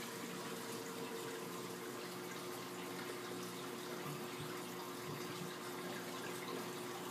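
Steady running, splashing water from a large aquarium's circulation, with a faint steady hum under it.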